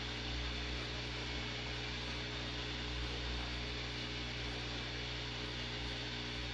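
CNC router running, its spindle bit milling a white block: a steady hum with a hiss of cutting that does not change.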